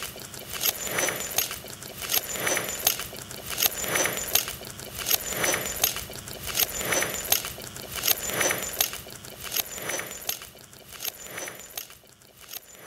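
Soundtrack music over the end credits: a chiming, glassy figure repeating about every one and a half seconds, fading out near the end.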